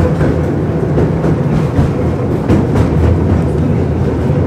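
Tram in motion, heard from inside the passenger car: a steady low rumble of the running gear and motors, with a few faint clicks of the wheels over the rails.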